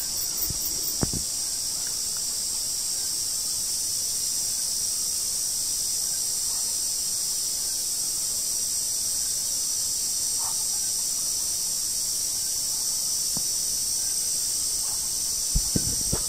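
Chorus of night insects, crickets and katydids: a steady, many-voiced high-pitched trill. A few soft knocks come about a second in and again near the end.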